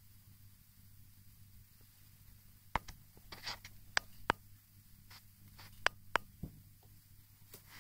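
A run of sharp clicks and short scratches from a dachshund playing with a tennis ball on a hard stair floor against a wooden railing, starting about three seconds in.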